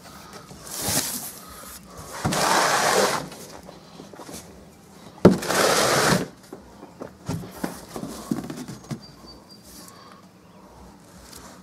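Cardboard scraping and rustling as the flaps of a large shipping box are handled, in three loud bursts: a short one about a second in, a longer one about two to three seconds in, and another about five seconds in, with small knocks and taps after.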